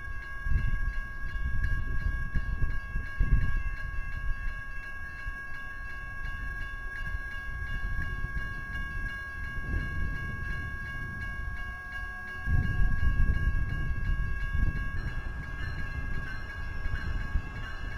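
Passenger train rolling into a station, a low uneven rumble that swells and grows louder about 12 seconds in, over two faint steady high tones.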